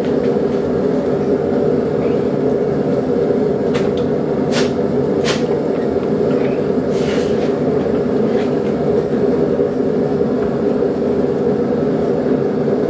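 Steady roar of a blacksmith's forge running, with a few short metallic clicks and taps over it.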